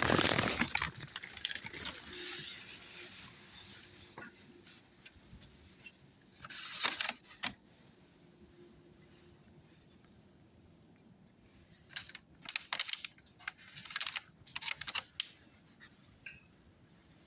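A small plastic spreader scraping and working thick filler mixed with peroxide hardener: scraping for the first few seconds and again about seven seconds in, then a run of short clicks and scrapes near the end.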